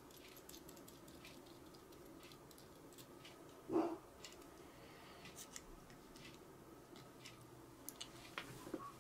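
Faint scattered clicks and taps of small metal and plastic extruder parts being handled by hand, with one short, louder sound about four seconds in.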